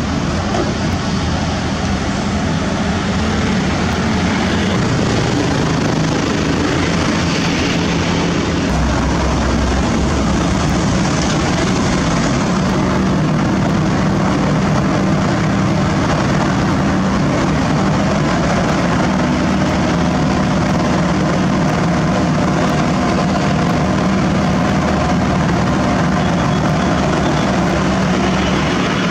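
Sakai ER501F cold milling machine running steadily under load, its heavy diesel engine and cutting drum making a loud, dense mechanical noise as it removes a worn asphalt surface. The engine note shifts slightly in pitch now and then.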